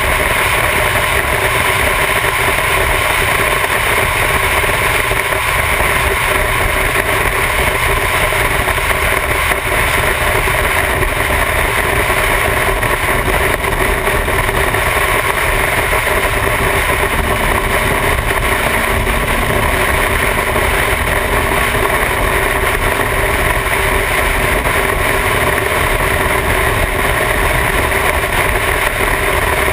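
Motorcycle cruising steadily at highway speed, heard from the bike itself: a constant engine drone under loud wind noise on the camera microphone.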